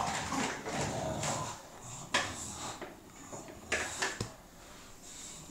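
Two bulldogs play-fighting over a toy: scuffling and jostling, with sharp knocks about two seconds in and twice near four seconds.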